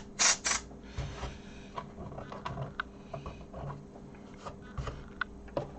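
Handling sounds from a Sinclair QL computer's plastic case: two short rushing, rubbing noises about a second in, then scattered light clicks and taps. A faint steady hum runs underneath.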